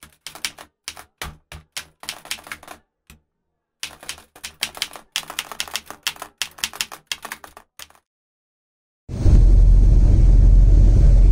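Typing sound effect: quick keystroke clicks in bursts, with a short pause about three seconds in, stopping about eight seconds in. About a second later, loud music with deep bass starts.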